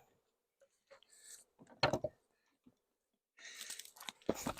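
Wooden beehive gear being handled: a short knock about two seconds in, then rustling and scraping and a thump near the end.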